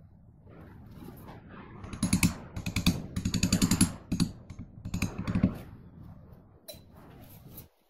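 Rapid light tapping and clicking of a metal punch worked against an inlay in the slot on top of an axe eye. The taps come in a quick run of about ten a second, then a few more and a last single click near the end.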